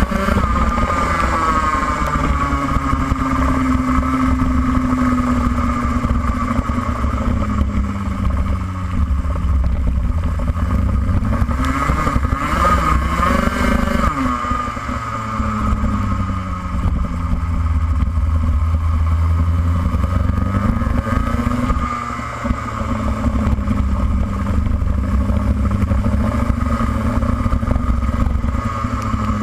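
Racing kart engine at full racing pace, its revs climbing along the straights and dropping away into the corners, several times over.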